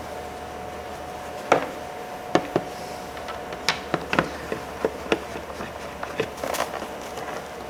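About a dozen sharp, irregular clicks and taps as a car's interior door handle is seated back in the door and its Torx screws are set, over a faint steady hum.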